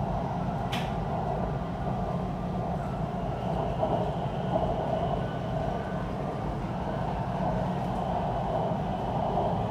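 Siemens Inspiro MRT train running at speed, heard from inside the carriage: a steady rumble and rolling noise, with a faint high whine from about three seconds in. A brief click comes about a second in.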